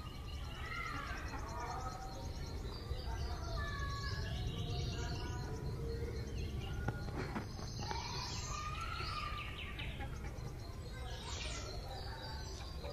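Outdoor ambience of birds chirping in short, scattered gliding calls over a steady low rumble.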